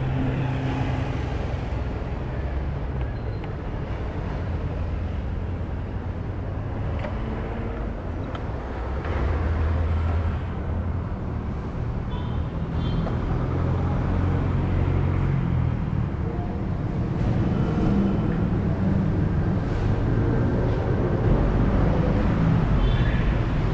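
Motor scooter running through city traffic, its engine under a steady wash of road and traffic noise.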